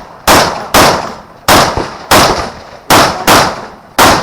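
Rapid rifle gunfire: about seven sharp shots in four seconds at uneven intervals, each cracking and trailing off in echo.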